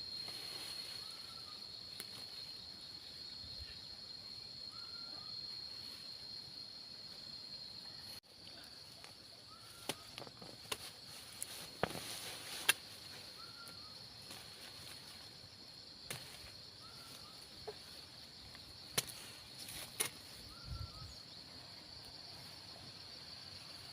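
A steady high-pitched insect drone, with a short faint chirp repeating every two seconds or so and a few sharp clicks scattered through the middle.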